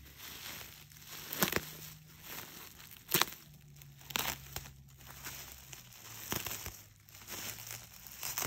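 Plastic bubble wrap crinkling and crackling as it is cut open with scissors and pulled apart. The crackles come in an irregular scatter, the loudest about three seconds in.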